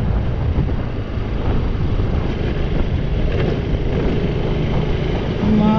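Bajaj Pulsar RS200 motorcycle ridden slowly over a rough road: the single-cylinder engine running under a steady low rumble of road and wind noise on the rider's microphone.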